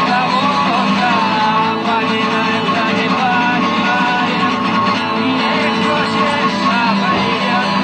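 Rock song playing, with guitars and a singing voice over them.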